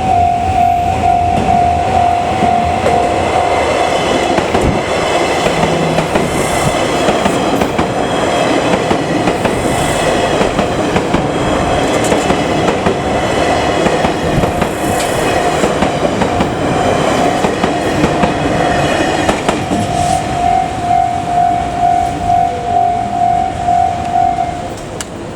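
JR West 283 series 'Ocean Arrow' limited express electric train running through a level crossing, its wheels clattering in regular beats over the rail joints. The crossing's electronic warning bell rings rapidly and steadily, is drowned by the train in the middle, rings clearly again once the train has passed, and stops shortly before the end.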